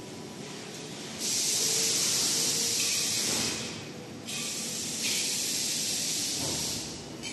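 Fiber laser tube cutting machine's assist gas hissing in two bursts of about two and a half seconds each, with a short pause between them, as the cutting head runs.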